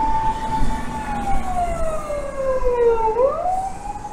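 Emergency vehicle siren wailing: a single tone holds high, slides slowly down, then climbs again about three seconds in, over low traffic noise.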